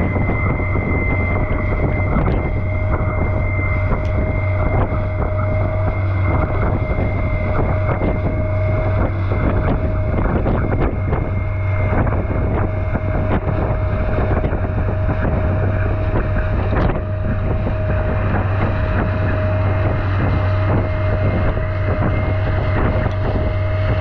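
Motorboat engine running steadily at speed with a constant tone, wind buffeting the microphone, and the hull knocking as it slaps through choppy waves.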